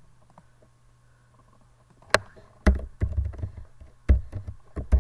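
Computer keyboard keystrokes: a handful of separate, irregularly spaced sharp taps with dull thumps, starting about two seconds in.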